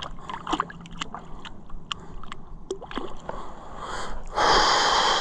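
Shallow water sloshing and small irregular splashes as hands release a musky at the shoreline. Near the end, a loud rush of noise lasting about a second that cuts off abruptly.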